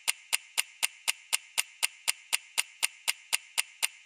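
Clock-ticking sound effect of a countdown timer: even, sharp ticks about four times a second over a steady hiss.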